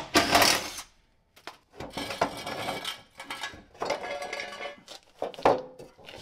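A cordless ratchet running in short spells as it spins off the nuts that hold a pickup's running board, followed by rattling, clanks and scrapes as the metal running board is pulled free, with a sharp knock about five and a half seconds in.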